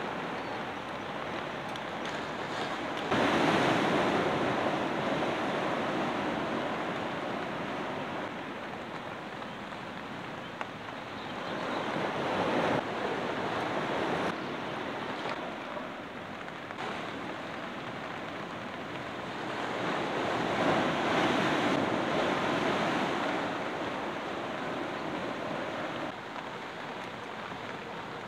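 Surf: waves breaking on a beach, swelling up and fading away three times, several seconds apart, over a steady wash of sea noise.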